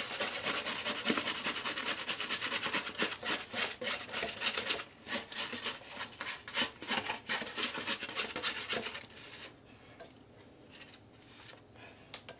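Whisk beating a liquid marinade in a small bowl with rapid strokes, working dry herbs and spices into lemon juice, oil and mustard; the whisking stops about nine seconds in, leaving a few light strokes.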